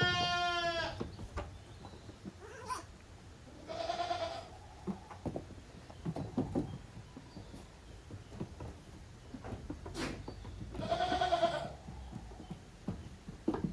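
Goats bleating: three wavering calls, at the start, about four seconds in and about eleven seconds in, with scattered light knocks between them.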